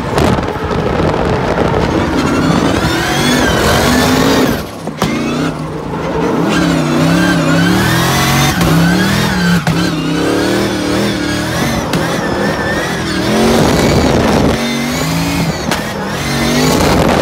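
Drift car engine heard from inside the cabin on a drift lap, its revs swinging up and down continuously as the car is held in slides. The revs drop briefly about five seconds in, then build again.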